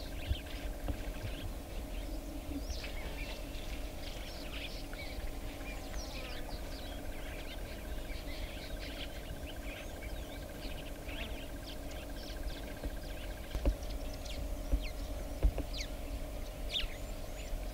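Wild birds chirping and calling in quick short notes over a steady low hum, with a rapid pulsed trill running through much of it. A few sharp knocks come in the last few seconds.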